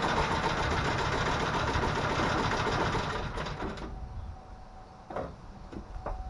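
2010 Chevy Silverado's 5.3-litre V8 running, then shut off about four seconds in; a few clicks and knocks follow, with a faint steady tone.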